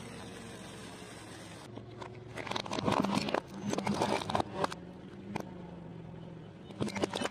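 A burning sparkler stick hissing under a car tyre. About a second and a half in, this gives way to a car tyre rolling over and crushing small objects: bursts of crackling and crunching, twice, over a steady low car engine hum.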